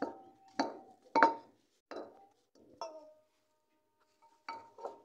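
Wooden pestle pounding seeds in a clay bowl: about seven uneven knocks, each with a short ring from the bowl, with a pause of more than a second before the last two.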